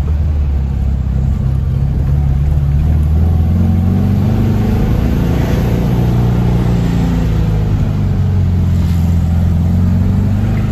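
VW Beetle's air-cooled flat-four engine heard from inside the cabin while driving. It pulls under acceleration with its pitch rising over the first few seconds, then runs steadily.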